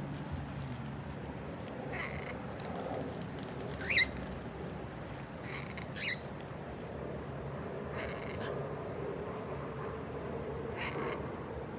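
Pet parrots calling: a handful of short chirps a couple of seconds apart over steady background noise. The two loudest, about four and six seconds in, sweep up in pitch.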